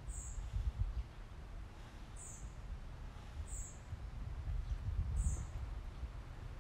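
A small bird giving short, high chirps that slide downward, four times, a second or two apart, over a low, uneven rumble.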